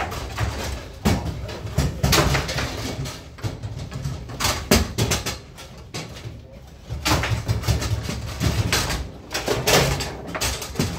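Table football being played: the ball cracks against the figures and the table walls, and the rods knock, in irregular sharp hits and quick clusters of hits.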